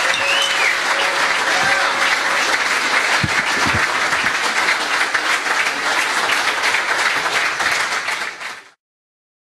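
Audience applauding after a live song, with a short whistle about half a second in; the applause fades out quickly near the end.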